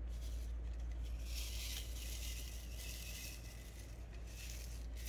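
Resin diamond-painting drills rattling and sliding across the ridged grid of a plastic tray as it is shaken to line them up in rows, in several short spells.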